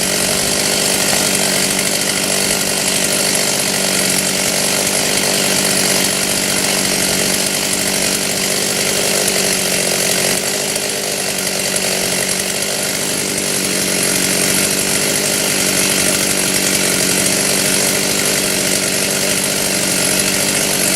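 Stihl two-stroke chainsaw running at high speed and cutting through oak wood. Its engine note sags briefly about ten seconds in as it loads up in the cut.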